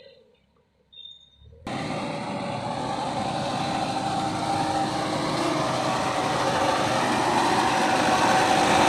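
Mahindra Earthmaster SX90 backhoe loader's diesel engine running. It cuts in abruptly after a moment of near silence, about two seconds in, and grows steadily louder.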